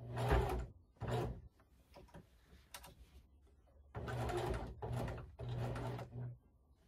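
Electric sewing machine running in short bursts, zigzag-stitching a folded fabric strip while it is eased slowly around a corner. Two brief runs come near the start, then several quick runs one after another from about four seconds in.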